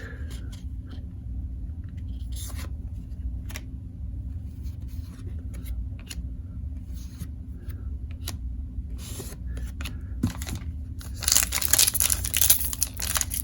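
Trading cards handled and shuffled, making scattered soft clicks and slides over a low steady hum. Near the end comes a louder run of tearing and crinkling: the wrapper of an Upper Deck hockey card pack being ripped open.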